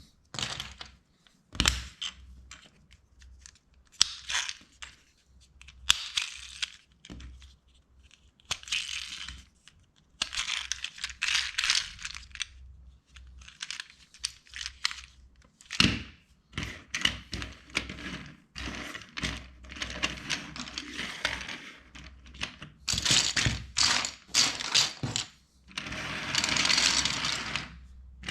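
Plastic LEGO bricks clicking and snapping together in a quick, irregular series, with several longer stretches of rustling and clattering between the clicks.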